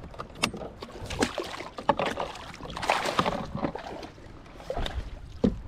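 Short, irregular splashes and slaps at the water's surface: fish busting shad in a striper and bass boil.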